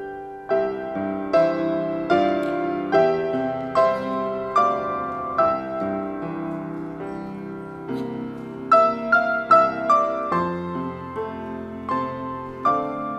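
Solo piano playing a gentle melody over chords, each note struck and left to ring, with a new note about every half second to a second.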